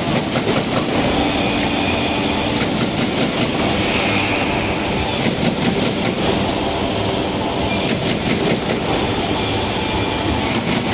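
Automatic carton partition assembling machine running, with a steady mechanical hum and spells of rapid clicking about every two and a half seconds as it works through its cycle.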